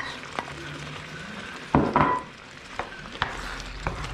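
Wooden spoon knocking and scraping in a frying pan as chopped bell pepper is added to a chili of mince, tomatoes and kidney beans and stirred in, over a low sizzle. The knocks come every second or so, the loudest about two seconds in with a short ring.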